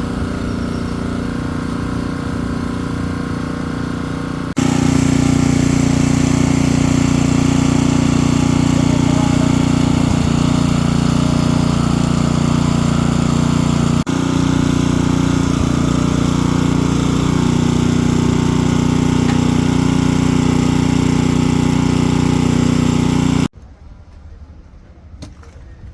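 A small engine runs steadily at a constant speed. The sound jumps louder about four and a half seconds in, and drops away abruptly near the end.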